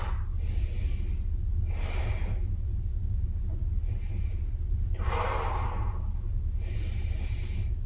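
A person breathing slowly and audibly while holding a stretch, about five breaths, the strongest about five seconds in. A steady low hum runs underneath.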